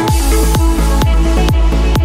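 Background electronic dance music with a steady, fast kick-drum beat under sustained synth chords.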